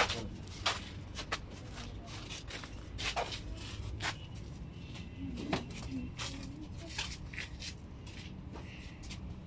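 Scattered clicks and rustling handling noise over a low steady rumble, with a brief faint voice about five and a half seconds in.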